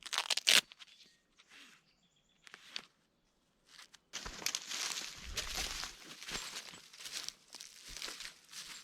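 A brief burst of rustling handling noise, then after a short dropout, steady footsteps walking outdoors for the last half.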